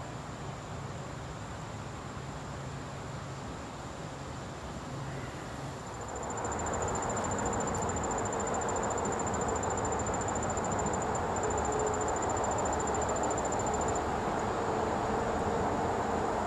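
Insects singing, a steady high-pitched trill that grows stronger and pulses through the middle. About six seconds in, a louder steady rumbling noise sets in underneath and holds.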